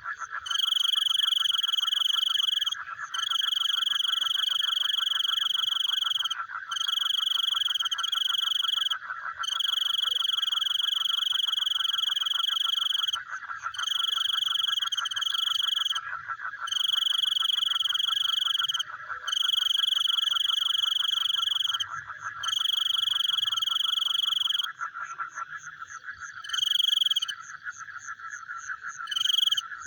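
Frogs calling at night: a steady, fast pulsing trill runs throughout. Over it, a louder, clear high-pitched call comes in repeated bouts of two to three seconds with short breaks. The bouts stop about 25 seconds in, and two short ones follow near the end.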